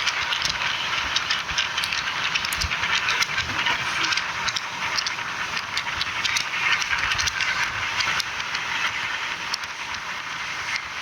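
Indian Railways passenger train running along the track: a steady rushing rail noise with scattered sharp clicks and rattles from the wheels and coach, easing a little near the end.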